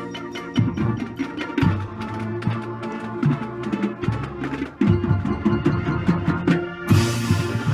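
Background music with a steady percussive beat of clicky, wood-block-like hits over a bass line, with a cymbal-like wash coming in near the end.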